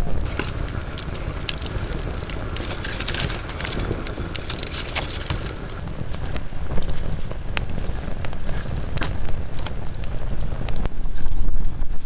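Wood fire crackling in an iron fire pit, with sharp pops scattered throughout over a low rumble.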